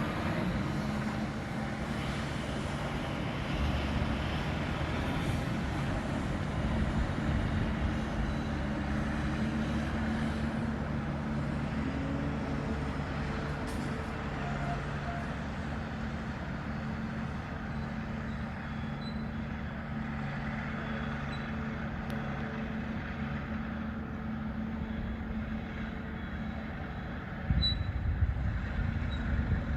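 Pile driver's diesel engine running steadily under load, its pitch rising briefly now and then, with a louder low rumble near the end.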